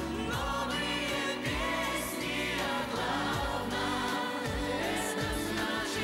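A pop song sung by several voices together, in chorus, over a band and a string orchestra, with a beat.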